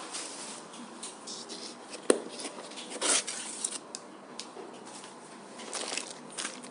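Light scratching and handling sounds, with one sharp click about two seconds in and a louder scrape about a second later.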